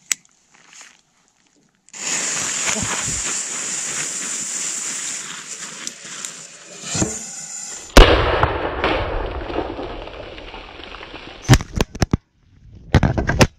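A firecracker fuse hissing steadily for about five seconds, heard from a camera taped to a homemade thermos rocket. About eight seconds in comes a single loud bang as the firecracker launches the rocket, and a rushing noise fades away after it. A few sharp knocks follow near the end.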